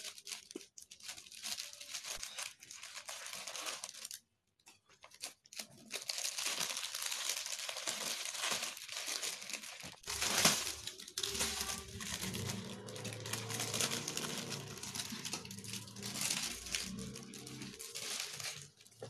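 Thin polythene sheet crinkling and rustling as it is handled and peeled back, with a short pause about four seconds in and a louder rustle about ten seconds in. A low rumble lies under it in the second half.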